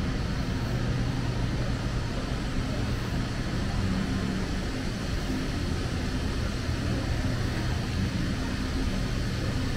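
Steady low mechanical hum of street ambience, with a constant drone and no distinct events.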